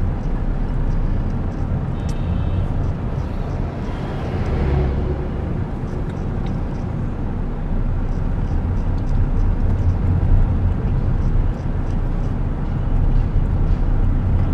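Steady low engine and road rumble heard from inside a moving car driving slowly through town traffic.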